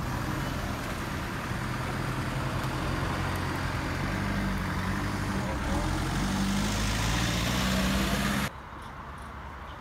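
A motor vehicle's engine running steadily, with a low hum that grows a little louder and then cuts off abruptly near the end.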